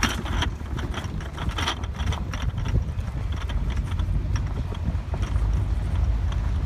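Irregular footfalls on a dry dirt track, over a low steady rumble of wind on the microphone.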